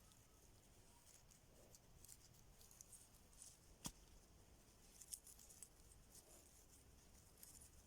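Near silence with faint, scattered small clicks and scratches, and one sharper click about four seconds in.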